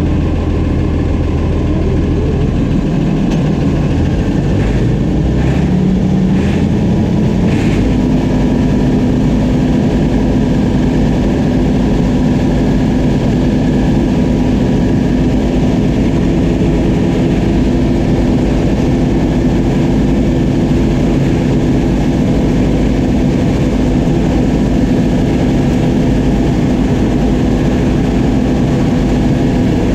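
Oliver 7300 combine running, its engine and machinery rising in pitch over the first several seconds as it throttles up, with a few light clicks, then holding a steady hum.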